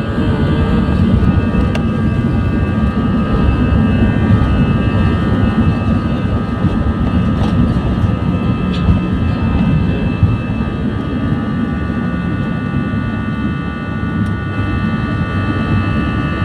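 Airbus A320 jet engines at takeoff power: a steady heavy rumble with a high, even fan whine over it.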